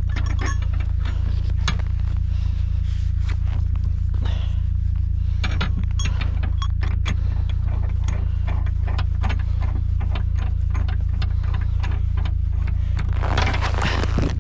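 A vehicle engine running steadily with a low drone, under many light clicks and rattles. A brief rustling noise comes near the end.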